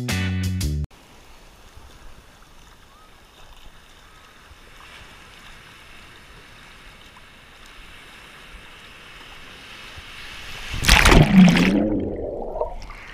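Background music stops about a second in, giving way to a steady wash of sea surf around a waterproof action camera. Near the end comes a loud rush and gurgle of water as the camera is plunged under a wave among bubbles.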